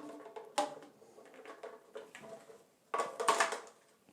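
Pipe fittings being handled and fitted together: a sharp click about half a second in and a short clatter about three seconds in.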